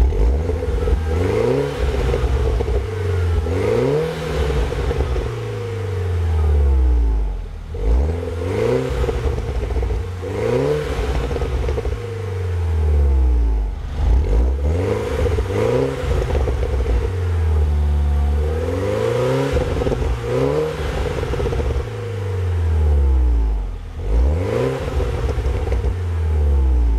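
2012 Mini Cooper John Cooper Works Coupe's turbocharged 1.6-litre four-cylinder heard at its twin centre exhaust tips, revved up and let fall back over and over, a blip every couple of seconds.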